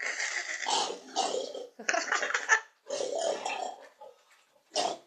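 Domestic pig grunting: four grunting calls, the first the longest and the last a short one.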